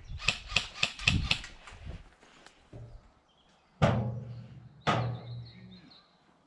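Quick rustling footsteps through undergrowth, then two sharp shots from an airsoft gun about a second apart, each followed by a short low hum.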